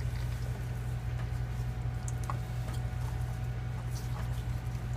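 A steady low hum, with a few faint scattered clicks and soft rustles as gloved hands press a whole armadillo carcass, shell on, down into a metal roasting pan of vegetables and rice.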